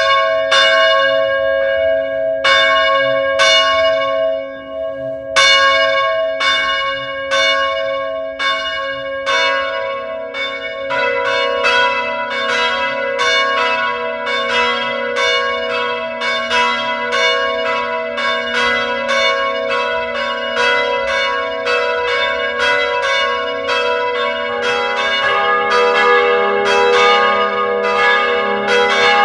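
Church bells ringing: a bell struck repeatedly, each strike ringing on, with a brief pause a few seconds in. After about ten seconds more bells of different pitch join and the strikes come faster, and a lower bell joins near the end.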